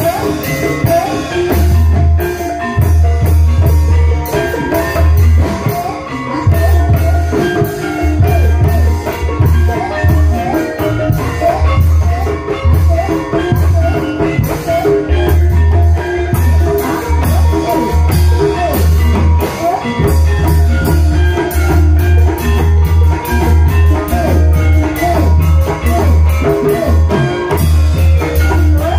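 Ebeg (kuda lumping) dance music from a Banyumasan gamelan-style ensemble: struck tuned percussion and drums over a heavy low beat that repeats in a steady rhythm.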